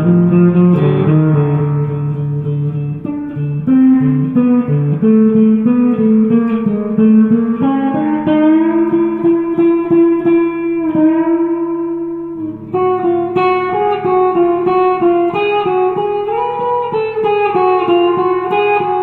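Guitar music: a melody of plucked notes over lower held notes, with no break.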